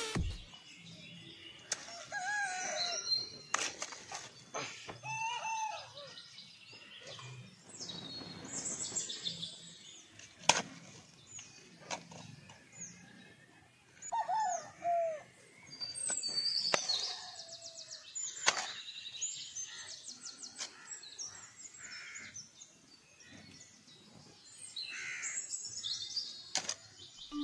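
Birds calling and chirping, many short rising and falling notes, some higher and some lower. Several sharp clicks or knocks cut through, the loudest about ten seconds in.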